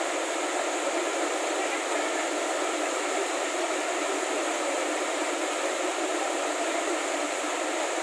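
Waterfall: water falling and rushing with a steady, even noise.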